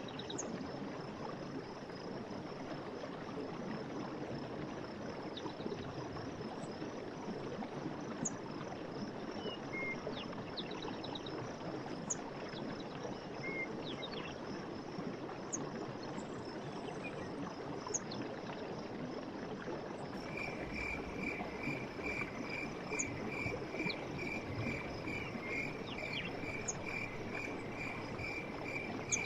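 Running stream water with scattered short bird chirps over a steady high pulsing trill. About 20 seconds in, a rapid, evenly pulsed call starts, about three notes a second, and keeps going.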